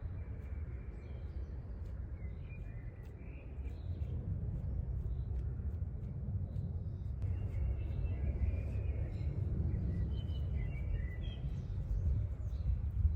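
Birds chirping here and there over a steady low rumble outdoors, busiest in the second half.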